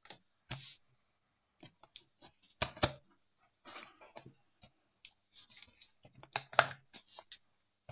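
A knife slitting the packing tape along the seam of a cardboard box: short scrapes and clicks of the blade on tape and cardboard, with two louder scrapes about three seconds in and near the end.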